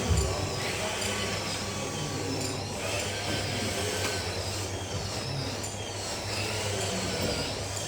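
Small electric motors of radio-controlled model trucks whining, their pitch rising and falling as they speed up and slow down, over a steady low hum.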